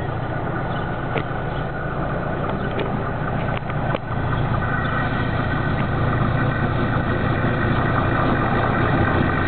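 SM42 diesel locomotive approaching, its engine running with a steady low drone that grows louder about four seconds in.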